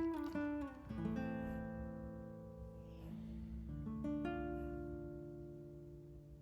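Background music: acoustic guitar, a few plucked notes in the first second, then chords left to ring and slowly fade.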